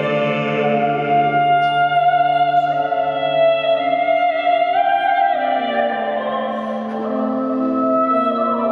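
Small string ensemble of violins, cello and double bass playing slow, sustained chords that change every second or so. The low bass note drops out about halfway through.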